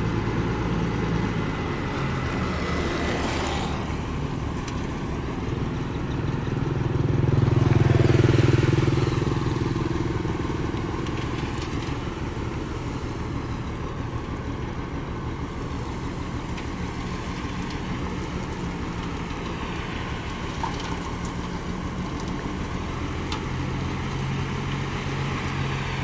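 Dump truck's diesel engine running steadily while the truck tips its bed, swelling louder about eight seconds in.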